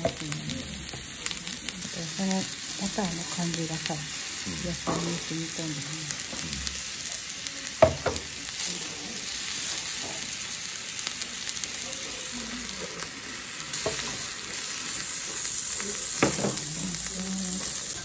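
Venison and vegetables sizzling steadily on a hot round iron griddle, with chopsticks moving the food. A sharp clack of a utensil on the plate about eight seconds in, and a smaller one near the end.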